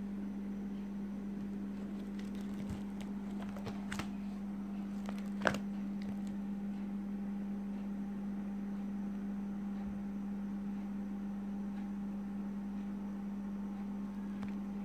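Steady low electrical hum, with a few light clicks and one sharper click about five and a half seconds in, from handling the plastic pages of a coin album.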